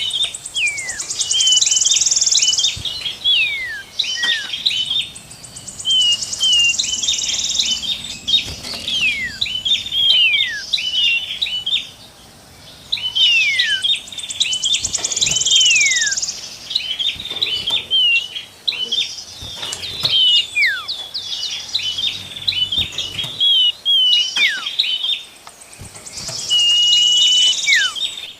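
Songbirds singing in repeated phrases every few seconds: a fast, high trill, clusters of short chips, and clear whistles that slide down in pitch.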